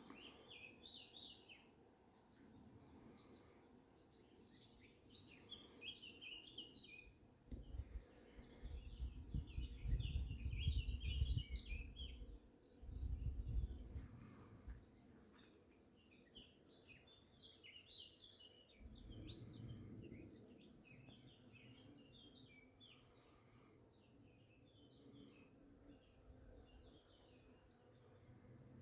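Small birds singing, with many short chirps and trills throughout. A low rumble comes and goes, loudest about ten seconds in.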